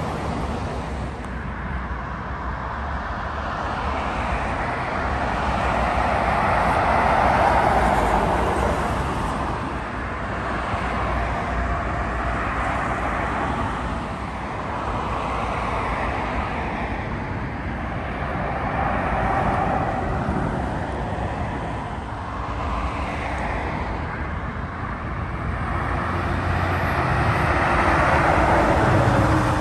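Road traffic: articulated lorries and cars passing one after another, diesel engines and tyre noise swelling and fading as each goes by. The biggest swells come about a quarter of the way in and near the end.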